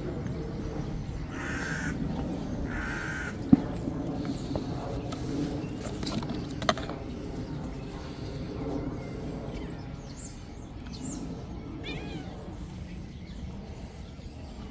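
A crowd of stray cats meowing at a bucket of dry food. Two short harsh calls come near the start, a sharp knock about three and a half seconds in, and a few high rising calls near the end.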